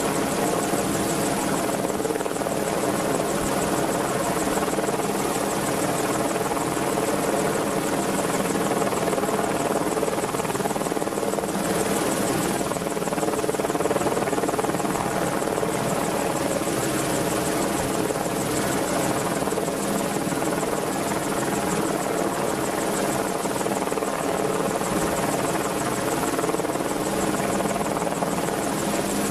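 Merlin (AW101) helicopter, a three-engined turbine helicopter, running steadily: a constant rotor and turbine drone with several held tones and a high whine, with no change in level.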